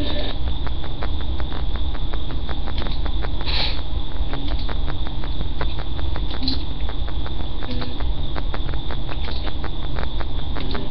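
Steady loud hum and hiss with a rapid, fairly even stream of faint crackling clicks, typical of a cheap webcam microphone's own electrical noise.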